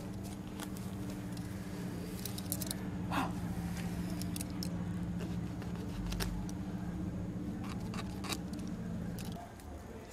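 Stiff, starched cotton warp threads being pulled apart into groups by hand, giving scattered small clicks and ticks, over a steady low hum that cuts off near the end.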